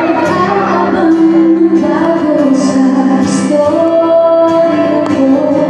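Live music with a woman singing into a microphone, amplified through stage speakers: held, gliding sung notes over a steady backing.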